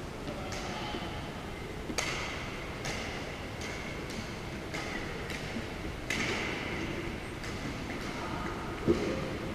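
Badminton rally in a gym: sharp racquet-on-shuttlecock hits every half second to second, with brief sneaker squeaks on the wooden court and an echo from the hall. A heavier thump near the end is the loudest sound.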